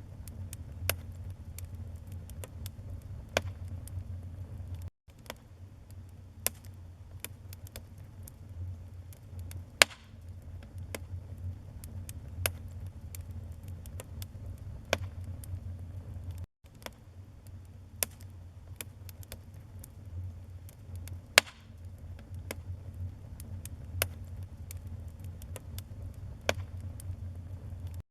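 Wood fire burning in a fireplace: a steady low rumble of flames with frequent, irregular sharp crackles and pops, a few much louder than the rest. The sound cuts out for an instant twice.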